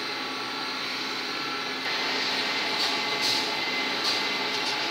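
Metal-turning lathe running, its chuck spinning a valve-seat blank: a steady mechanical hum that gets a little louder about two seconds in, with a few brief higher hisses as the cutter works the part.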